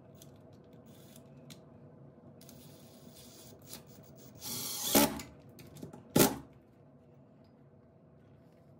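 Makita cordless driver giving a short burst of about half a second, sinking a screw through a metal blind-mounting bracket, with a sharp knock about a second later. Light handling clicks before it.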